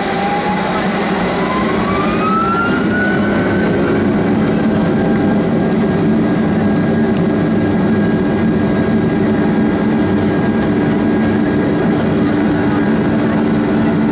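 Boeing 757 jet engines spooling up to takeoff thrust for the takeoff roll, heard from inside the cabin over the wing. A whine rises in pitch over the first few seconds, then holds steady above a deep, strengthening rumble.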